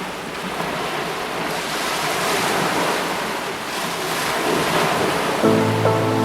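Heavy ocean surf rushing and surging in strong wind, rising and falling in swells. Music with sustained notes comes in near the end.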